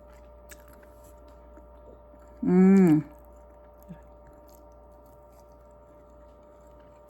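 Quiet chewing of cake with faint clicks over a steady faint hum, broken about two and a half seconds in by one short, loud, pitched vocal sound from the eater.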